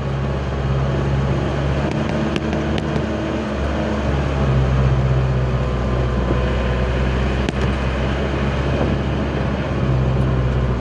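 Old Mitsubishi L300 pickup's engine running steadily in first gear, holding the heavily overloaded truck back on a downhill, heard from inside the cab where the engine sits under the seat. A few light clicks from the cab or load come through, once about two seconds in and once past the middle.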